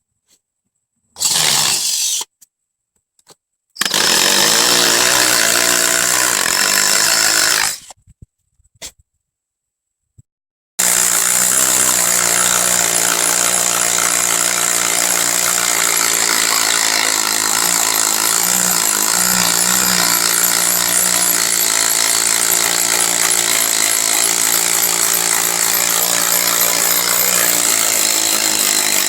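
A regular drill on its hammer setting with a 3/8-inch masonry bit boring into a concrete floor. It runs in a short burst, then a longer one of about four seconds, then continuously from about eleven seconds in. The bit is making slow progress in hard concrete, and the driller wonders whether it has hit rebar.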